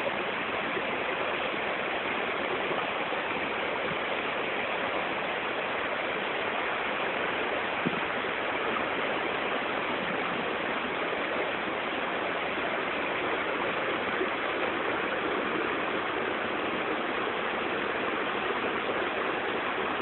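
Waterfall pouring, a steady rush of water.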